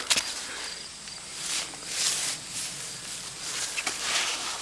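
Footsteps and rustling through dry pumpkin vines and leaves, in several soft swishing swells with a few light crackles.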